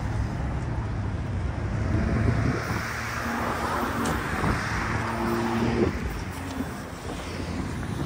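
Road traffic on a city street: a vehicle passes, its tyre noise swelling and fading in the middle, over a steady low engine hum.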